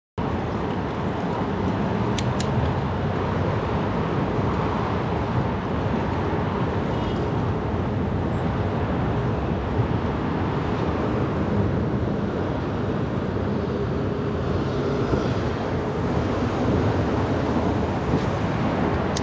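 Steady rush of wind and road noise from a bicycle ride on the action camera's microphone, cutting in abruptly just after the start.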